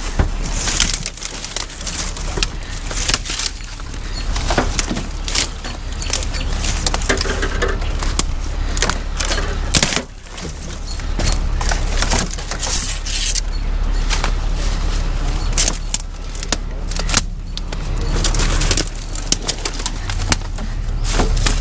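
Dry branches and brush crackling, snapping and rustling as they are pulled and broken away by hand, with many sharp cracks throughout. A steady low hum runs underneath.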